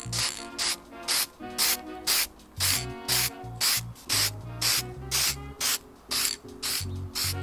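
Background music with a steady beat: a hissing shaker-like stroke about twice a second over held chords and a pulsing bass.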